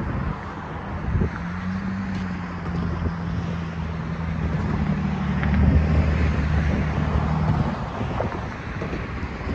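Road traffic driving across a railroad crossing: the engine and tyre noise of passing cars and a pickup truck, one engine hum growing louder and then stopping near the end, with wind buffeting the microphone.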